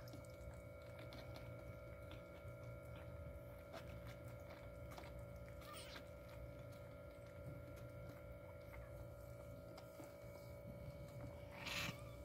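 Mother cat purring, a low steady rumble, with a brief rustle near the end.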